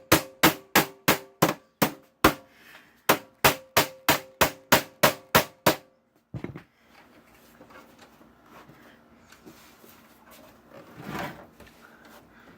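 Rapid hammer blows on a steel computer case, about four a second, each with a ringing metallic tone; they pause briefly and resume, then stop about six seconds in, leaving faint handling noise and a soft knock near the end.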